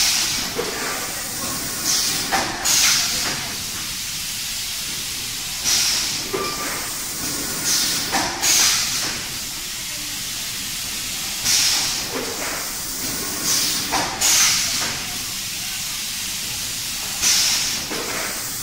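Popcorn cup filling and sealing machine running with a steady hiss, broken about every three seconds by short bursts of louder hissing, with a sharp click among some of them.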